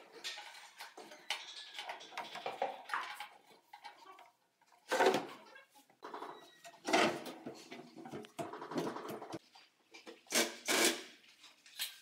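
Wooden cabinet drawers being slid along their runners and knocked shut, with irregular clatter and several sharp knocks, among them a short rattling run near the middle.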